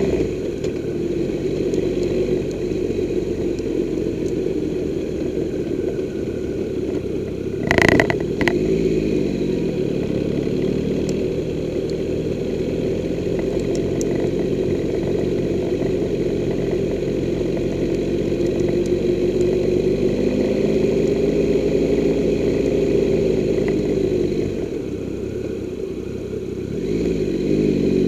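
Triumph Tiger 1200's three-cylinder engine running at low speed, its revs falling and rising several times. A brief loud sharp sound stands out about eight seconds in.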